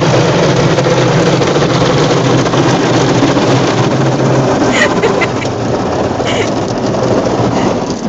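Automatic car wash working over the car, heard from inside the cabin: a loud, steady rush of water drumming on the body and windows over a steady low hum, with a few short clicks about five and six seconds in. The sound drops off right at the end.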